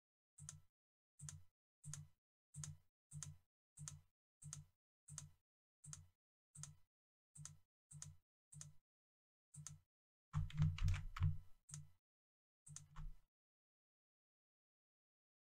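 Computer mouse button clicking, one click every half second or so, as edges are shift-clicked one at a time. A quicker, louder flurry of clicks comes about ten seconds in, and the clicking stops a couple of seconds before the end.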